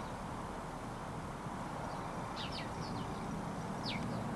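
Outdoor ambience: a steady low rumble with a few short, high chirps from birds that fall in pitch, three in quick succession about two and a half seconds in and one more near the end.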